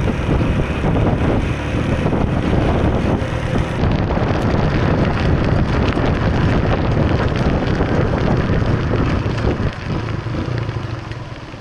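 Motorcycle under way: the engine running with heavy wind noise buffeting the microphone, easing off near the end.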